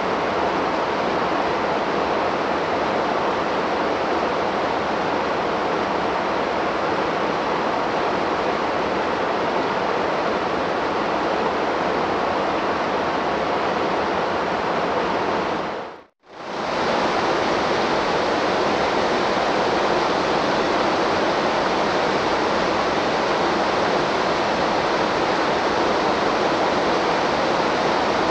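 Waterfall rushing in a steady, even roar of falling water. A little past the middle it fades out to silence for a moment and then comes straight back.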